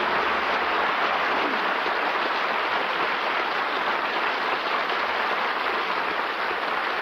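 Audience applauding: dense, steady clapping that eases slightly near the end, heard on an old radio broadcast recording with the highs cut off.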